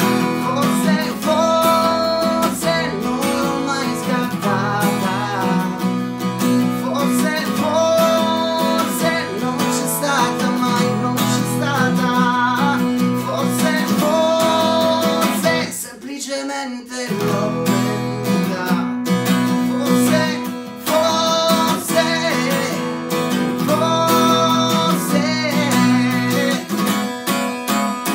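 Cutaway acoustic guitar strummed in steady chords, with a man singing over it. The playing breaks off for about a second a little past the middle, then resumes.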